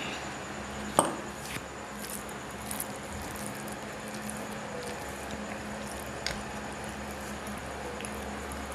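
Fingers mashing and mixing rice with boiled vegetables on a plate: soft, wet squishing with a few light clicks. There is one sharp knock about a second in, the loudest sound, over a steady low hum.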